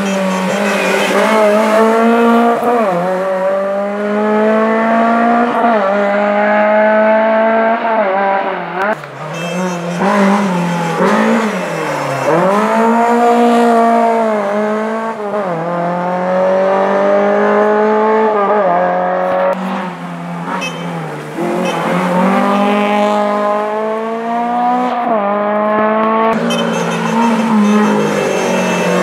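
Rally car engines revving hard up through the gears, each gear pulling the pitch up before it drops sharply at the shift, over and over every two to three seconds.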